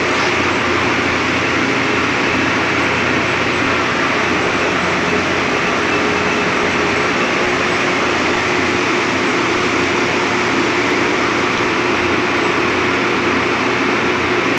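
Steady machinery drone, a constant rushing noise with a faint steady hum underneath, unchanging throughout.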